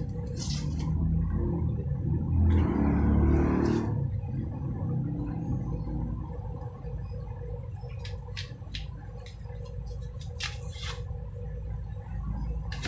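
An onion being peeled with a kitchen knife: a few short crisp crackles of its papery skin and the blade scraping, heard mostly near the start and again about eight to eleven seconds in. Under them runs a steady low rumble, louder between about one and four seconds in.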